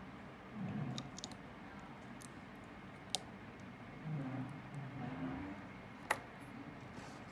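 Faint scattered clicks and light ticks of small hard parts being handled, with a sharper click about six seconds in.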